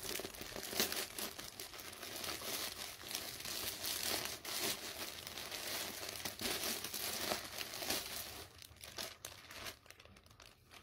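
A plastic poly mailer bag being torn open and crinkled by hand: a dense crackling rustle that thins out near the end.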